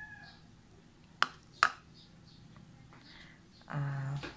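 Two sharp clicks, about half a second apart, as ceramic bowls of chopped vegetables are handled on the table. A short vocal sound follows near the end.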